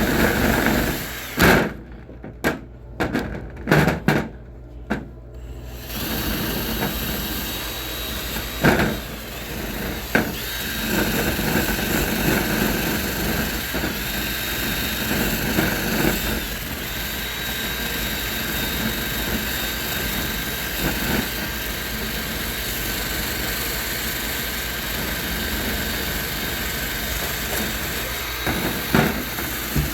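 Power drill spinning a wire brush against a bench vice, scrubbing off the old surface: several short bursts with clicks at first, then running steadily from about six seconds in.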